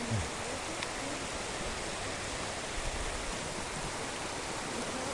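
Steady rushing of river water at Lewis Falls.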